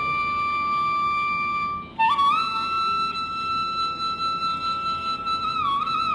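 Background music: a single melody line of long held notes. The first note breaks off about two seconds in, and the next is held before bending and sliding down in pitch near the end.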